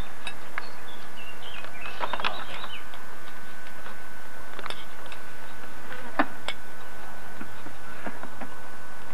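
Insects buzzing steadily in summer outdoor ambience, with a burst of short chirps about two seconds in and a few sharp clicks later on, the loudest a little after six seconds.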